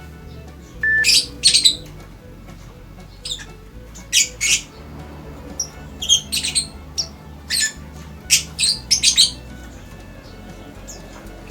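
A small cage bird giving short, harsh calls, often two or three in quick succession, about a dozen in all.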